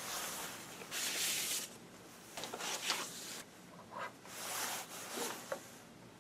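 Irregular rustling and scuffing noises in a handful of short bursts, with no music yet: the lead-in at the start of a recording, before the drums come in.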